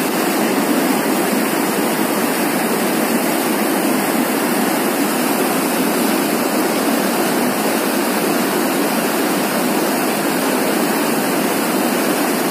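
Fast mountain stream rushing over rocks in whitewater, a loud, steady rush of water.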